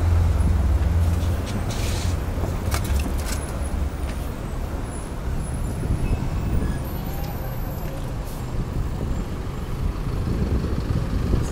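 Street traffic passing close by: a city bus and cars running past, with a low engine rumble loudest in the first second or so, plus a few brief clicks.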